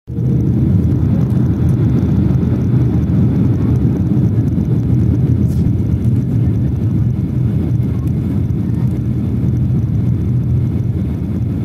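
Cabin noise inside a Ryanair Boeing 737 descending on approach to land: a steady, deep rumble of engines and airflow heard through the fuselage, easing off slightly towards the end.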